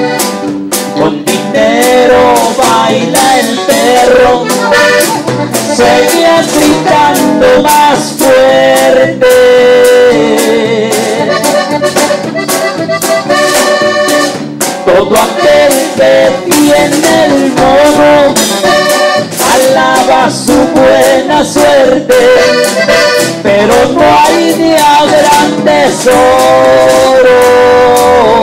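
Live band music: an accordion melody over keyboard and a drum kit, playing a steady dance beat.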